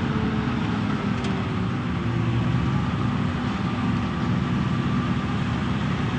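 Large vehicle engine idling steadily, with a low, even hum and no firing or blasts.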